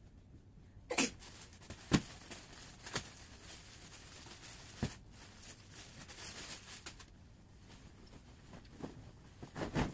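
Bedding rustling as a bed is made, with duvet and pillow being handled, and several sharp thumps and flaps of fabric: the loudest about two seconds in, a few more spaced a second or so apart, and a cluster near the end.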